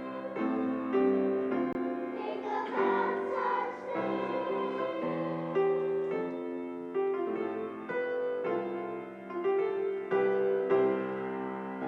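Music: a piano playing chords with sustained notes changing every half second or so.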